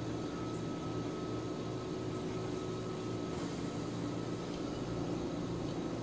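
Steady mechanical room hum with a thin high tone, and a few faint clicks from chewing a mouthful of udon noodles.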